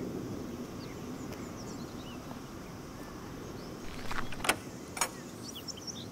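Outdoor background with scattered small bird chirps. A short cluster of sharp clicks and knocks comes about four seconds in, the loudest two a moment apart.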